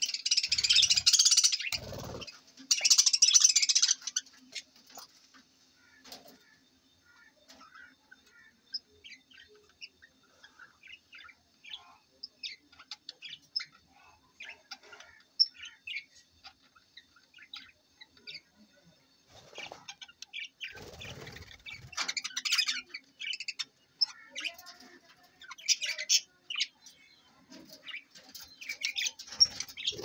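A flock of budgerigars chirping and chattering, in loud bursts of high calls during the first few seconds and again in the last third, with scattered single chirps in between. Wings flap now and then.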